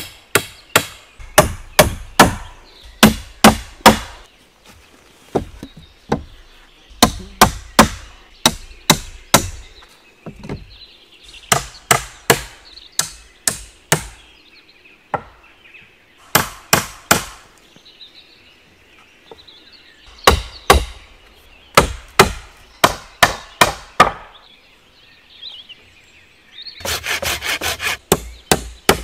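Axe blows striking green wooden poles in bursts of several sharp strikes, about three a second, with short pauses between bursts filled by faint rustling. About two seconds before the end comes a denser, rasping run of rapid strokes.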